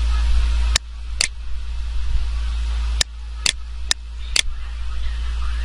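Steady low hum and hiss, broken by about six sharp clicks over roughly four seconds, like computer mouse clicks.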